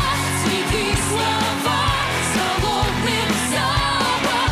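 Pop song performed live: a woman singing into a microphone over pop backing music with a steady drum beat of about two strokes a second.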